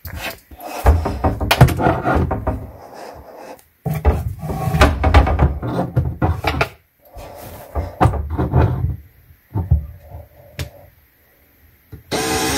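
Irregular knocks, bumps and rubbing as hands work inside a wooden kitchen cabinet, brushing the shelf and setting a cordless drill in place. Near the very end the cordless drill starts running.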